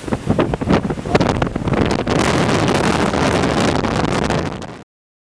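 Strong, gusty hurricane wind buffeting the microphone, with sharp rumbling blasts in the first couple of seconds and a steadier loud rush after that. It cuts off suddenly near the end.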